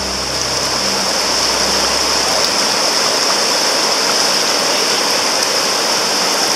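River rapids: whitewater rushing steadily over rocks.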